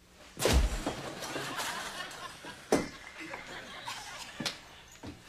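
A heavy thump as a man drops into an office chair, then audience laughter for a couple of seconds, with a few sharp knocks after it.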